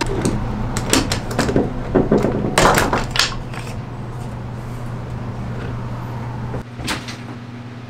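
Knocks and clatter of metal bar clamps and a wooden hive box being handled on a wooden workbench, with a scraping slide about two and a half seconds in. After that a steady low hum continues, with one more knock near the end.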